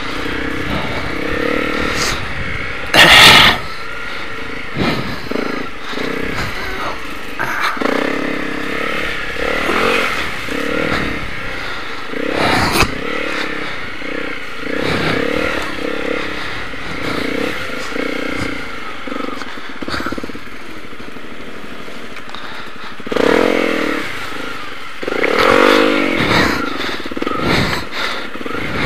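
Motorcycle engine running as it is ridden over a wet, rutted dirt trail, its pitch rising and falling with the throttle. A loud thump comes about three seconds in.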